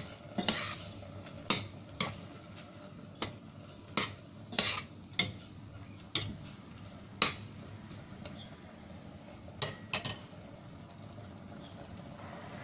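Metal spoon stirring chicken curry in a stainless steel pot, clinking and scraping against the pot's sides in irregular strikes. The stirring stops about ten seconds in.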